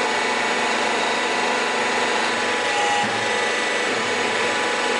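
Forge burner running with a steady hiss, a few faint steady tones in it.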